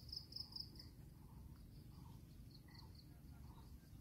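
Near silence with faint high insect chirping: a quick run of about six chirps at the start and a few fainter ones about three seconds in, over a low outdoor rumble.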